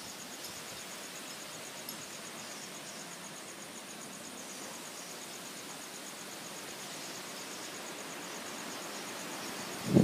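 Steady rushing of strong wind through trees, with insects trilling in a rapid, even high-pitched pulse above it.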